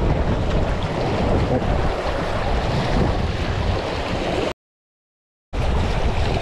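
Rushing water of a shallow river riffle around a small plastic boat, with wind buffeting the microphone. The sound cuts to total silence for about a second just past the middle, then comes back.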